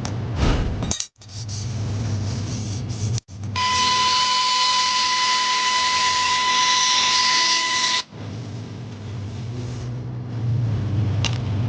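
A small electric air blower running steadily for about four seconds with a high whine, blowing dust out of the laptop's insides. Before and after it there is quieter rubbing and handling noise over a low hum.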